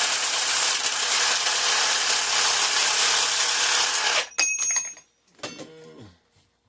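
A power tool running loud and steady on aluminum bus-bar stock, cutting off abruptly about four seconds in, followed by a few light metallic clinks with brief ringing.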